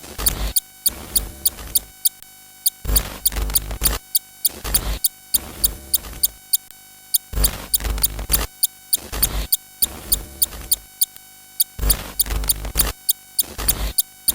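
Looping electronic music: rapid, evenly spaced high ticks over a bass line, the whole pattern repeating about every four and a half seconds.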